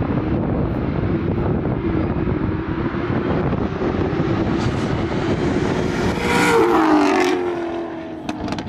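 Car engine running hard at high, steady revs during a drag run, with heavy wind and road noise. About six seconds in, the engine note drops in pitch and eases off.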